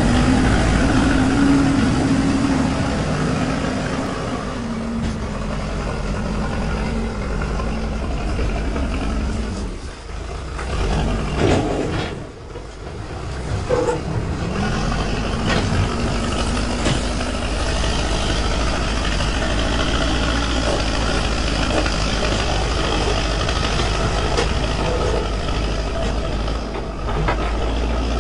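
Diesel engine of a backhoe loader running under load while it digs and pushes soil, with a few short knocks and a brief dip in loudness about ten to thirteen seconds in.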